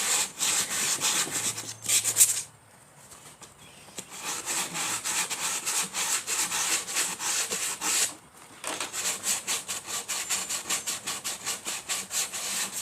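Sanding the cut edge of an MDF speaker adapter: quick back-and-forth rasping strokes, about four or five a second. There is a pause of over a second near the start and a short break later on.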